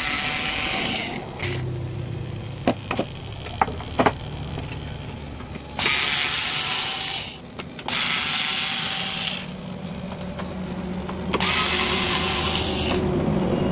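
Screwdriver backing the screws out of an amplifier's metal case, in four spells of about a second and a half each, with a few small clicks of the screws and case in between.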